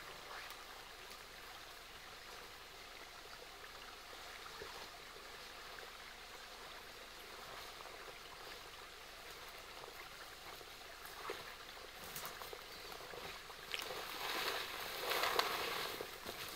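A person pushing through dense undergrowth, with rustling brush and footsteps that grow louder and more frequent in the last few seconds as he comes close. Under it is a faint, steady outdoor hiss.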